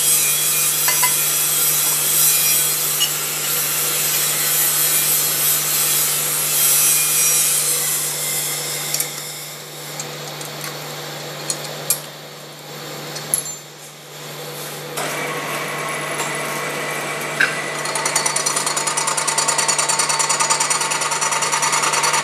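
Milling machine running with a steady hum and a loud hissing workshop noise. Partway through, a few sharp metallic clicks come as a spanner tightens the clamp nut on the workpiece. Near the end the noise takes on a fast pulsing beat.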